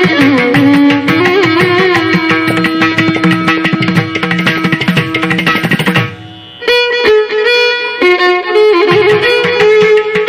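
Background music: Indian classical-style instrumental, a melody with held notes over drum strokes. It drops out briefly about six seconds in, then carries on.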